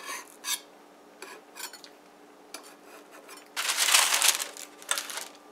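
A utensil scraping a few times against a nonstick metal bundt pan, loosening a cooled cake from its sides. About three and a half seconds in, a sheet of parchment paper rustles loudly as it is laid over the pan, with a shorter rustle near the end.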